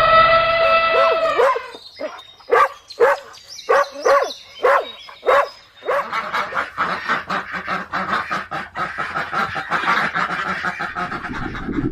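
Animal calls: first one long call held on one pitch, then about eight short separate calls, then a dense stretch of many overlapping calls.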